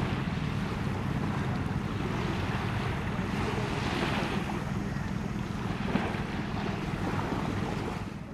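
Wind buffeting the microphone over small waves washing onto a sandy beach, a steady rushing noise with a low hum underneath, swelling briefly about four seconds in.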